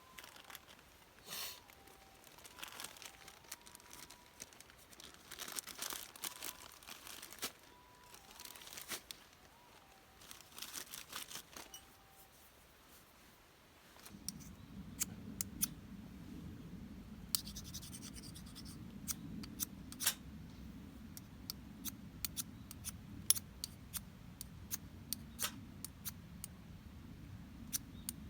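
Rustling and handling noises for the first half, then a steady low rush starts about halfway in with frequent sharp pops and crackles, like a campfire burning up.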